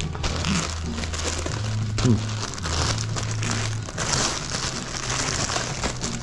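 Clear plastic bag crinkling and rustling as hands grip, pull and tear at it to unwrap a packed part.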